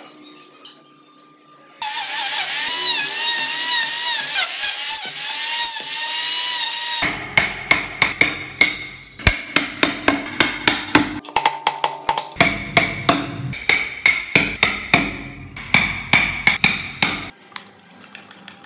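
A power tool bores into a block of wood for about five seconds, its pitch wavering as it loads up. Then a chisel is driven into the wood with a run of sharp mallet blows, about three a second, for around ten seconds.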